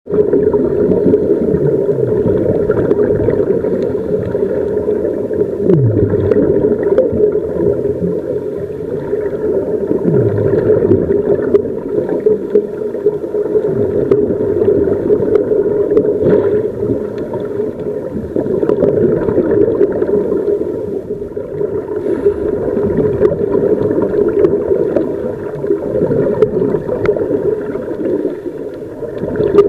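Muffled underwater sound through a camera's waterproof housing: gurgling exhaust bubbles from scuba regulators over a steady low drone, swelling and fading irregularly.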